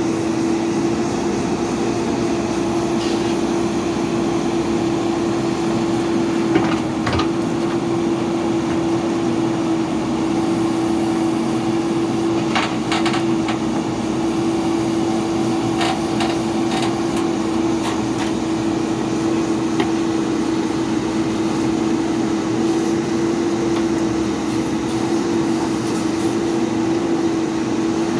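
Diesel engine of a JCB backhoe loader running steadily at a constant pitch, with a few short knocks and clanks.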